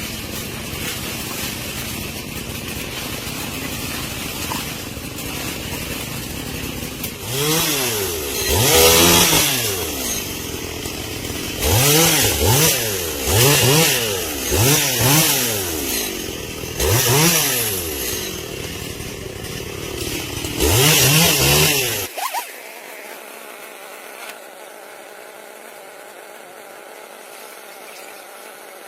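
Two-stroke chainsaw running at idle, then revved hard about six times, its pitch rising and falling with each burst of throttle. About 22 seconds in the engine sound cuts off suddenly, leaving only a faint steady hiss.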